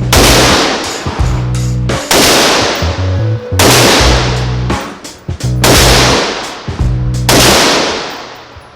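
Loud background music with a heavy beat: five crashing hits, each fading over a second or more, about every 1.5 to 2 seconds over a stepping bass line.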